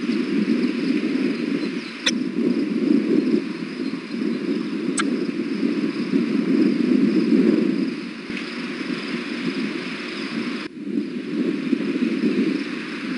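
Steady, loud rushing outdoor background noise on the nest-cam microphone, with two sharp clicks about three seconds apart and a brief drop-out near the end.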